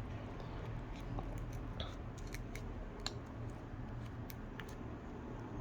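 Faint scraping and small scattered clicks of a thin, flexible flat pry tool working between a smartphone's screen and frame, cutting through the screen adhesive.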